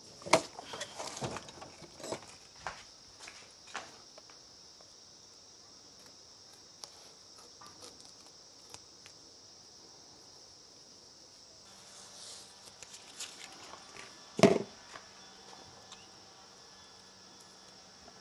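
Steady high-pitched insect chirring in the background. Sharp clicks and knocks from handling come in the first few seconds, and there is one louder knock about 14 seconds in.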